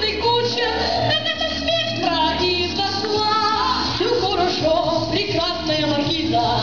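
Children singing a song into microphones over instrumental accompaniment with a steady, regular bass beat.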